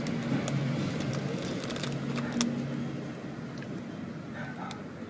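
Crunchy cheese corn snack being chewed: a scatter of short, sharp crackles. Underneath is a low, steady hum that grows fainter about halfway through.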